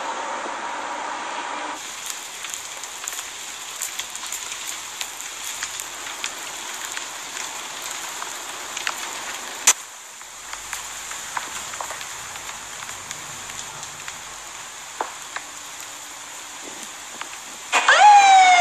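Burning timber crackling and popping over a steady hiss, with one sharp, loud pop about halfway through. Just before the end a fire engine's siren starts loud and falls in pitch.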